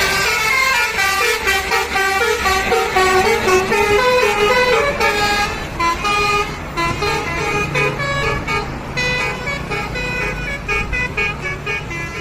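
Telolet multi-tone musical horn on an Isuzu Elf minibus playing a fast melody, loud, with its notes stepping up and down about every quarter second.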